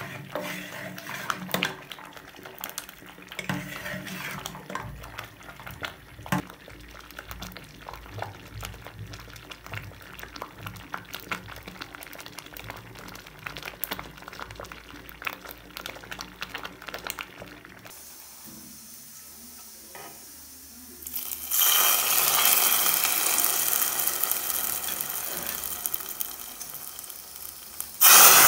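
Metal ladle stirring thick stinging-nettle soup in an aluminium pot, with scattered clinks and scrapes against the pot. About 21 seconds in a loud, steady sizzle of spices frying in hot oil begins, and near the end it jumps louder as the hot tempering of fenugreek seeds and dried chillies goes into the soup.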